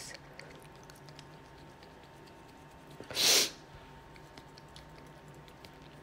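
A woman sneezes once, about three seconds in: a single short, loud, breathy burst.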